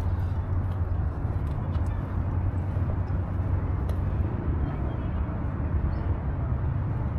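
Steady low rumble of city background noise, with a few faint clicks.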